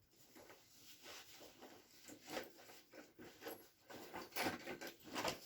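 A run of short rubbing and scraping sounds from tools and metal parts being handled, loudest about four and a half seconds in.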